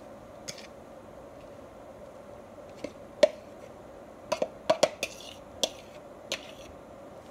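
A metal fork clinking and scraping against the bowls as shredded beef is pushed off a ceramic bowl into a tub of beaten eggs: about nine sharp clinks, the loudest about three seconds in and a quick cluster a second later. A faint steady hum runs underneath.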